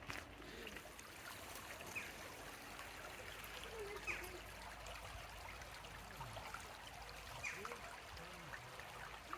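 Faint steady trickle of running water, with a few faint distant voices now and then.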